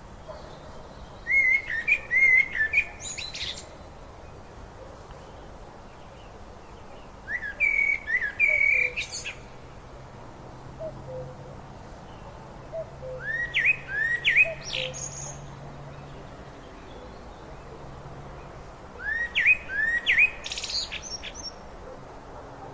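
A songbird singing four short phrases, roughly every six seconds. Each phrase is a quick run of rising, upswept notes followed by a few higher, sharper notes.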